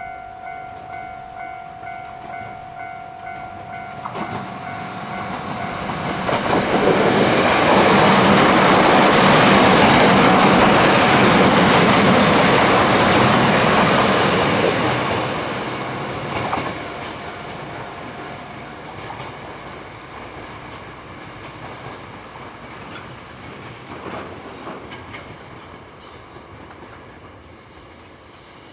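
A Japanese level-crossing bell rings rapidly for the first few seconds. Then a Kyoto Tango Railway KTR001 'Tango Explorer' diesel railcar passes: its noise swells, stays loud for about eight seconds in the middle and fades away.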